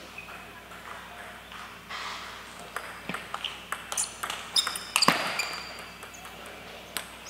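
Table tennis ball clicking off rackets and the table during a rally, in an irregular run of sharp hits that comes thickest near the middle, the loudest about five seconds in.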